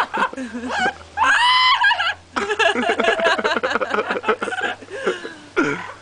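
An Amazon parrot vocalizing close up together with laughter: a drawn-out, wavering call about a second in, then about three seconds of rapid chuckling.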